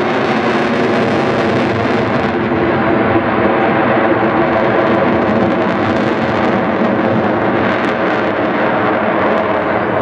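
Military aircraft engine drone, loud and steady with a buzzing, evenly pitched tone.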